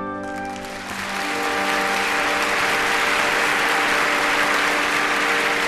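Audience applauding, the applause swelling up just as the orchestra's held chord dies away in the first second. Soft sustained orchestral notes carry on underneath the applause.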